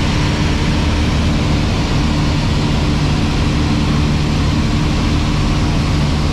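Piper Cherokee's piston engine and propeller droning steadily in flight, heard from inside the cockpit.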